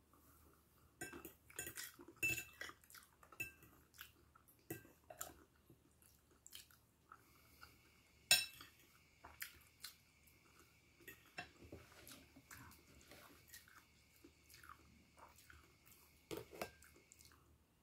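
A metal fork clinking and scraping against a bowl in scattered short knocks, with chewing in between; the sharpest clink comes about eight seconds in.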